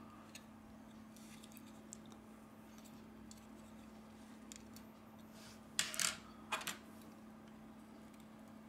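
Faint steady hum, then about six seconds in two short light metallic clinks a little over half a second apart, from metal tweezers and a smartphone motherboard with metal shields being handled.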